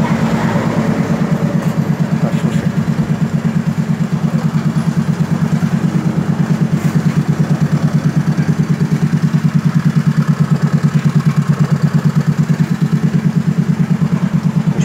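Yamaha Mio Sporty scooter's single-cylinder engine idling steadily, with a fast, even pulse.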